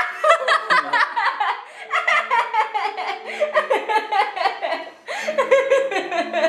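People laughing and giggling over background music with held notes.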